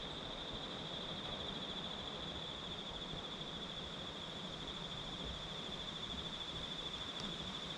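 Steady, high-pitched drone of an insect chorus, with a fine pulsing texture, over a constant background hiss.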